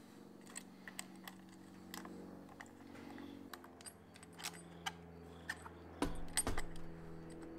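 Light, irregular plastic clicks and taps of wire ends and crimped ferrules being handled in a 3D-printed plastic project box. About six seconds in, louder knocks and a low rubbing as the thick rubber power cord is pushed through the box's cord clamp.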